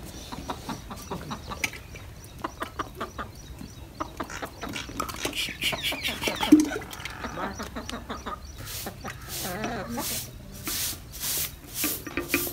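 Hens clucking over a hand-pulled wooden butter churn working in a clay pot, its strokes giving a run of short knocks that settles into a steady beat of about two a second in the second half.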